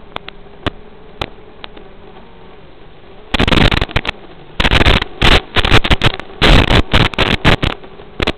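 Crackling static and sharp clicks on the audio of an analog FPV video link, loudest in bursts from about three seconds in and again from about halfway to near the end, with a faint steady tone underneath. It is the sign of a weak, breaking-up radio signal from the quad's video transmitter.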